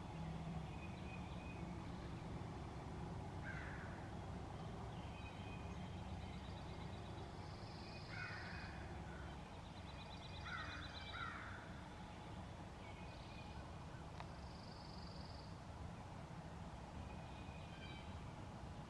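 Birds calling in spring woodland: a handful of short, harsh, falling calls, two of them in quick succession, with higher trilling songbird notes in between.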